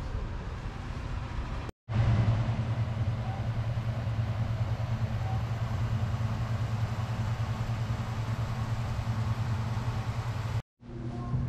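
A steady low engine hum, as of a motor running at idle. The sound drops out abruptly for a split second twice, and is louder after the first break.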